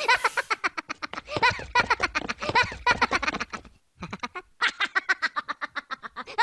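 Cartoon-style intro sound effect: a fast, even run of short quack-like pitched pulses, about eight a second, with two short breaks about four seconds in.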